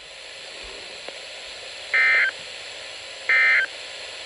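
NOAA Weather Radio sending two short bursts of SAME digital data tones, about two and three and a half seconds in, over a steady radio hiss. Coming straight after the end of the warning text, they are the end-of-message code that closes the alert.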